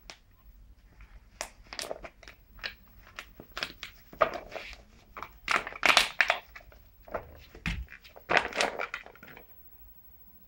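A black Labrador mix chewing and biting a handmade toy made from a plastic water bottle, the plastic crackling and crunching irregularly. The loudest crunches come about six and eight and a half seconds in.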